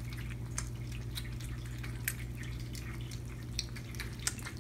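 Several kittens eating wet cat food from plates, with irregular soft wet clicks and smacks of chewing and lapping. A steady low hum runs underneath.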